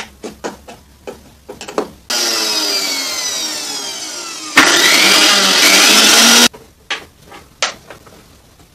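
Mixer grinder's electric motor switched on to test the speed control switch: clicks of handling and the knob, then the motor starts abruptly with a high whine that slowly falls in pitch. About four and a half seconds in it jumps to a louder setting and cuts off sharply about two seconds later, followed by a few more clicks.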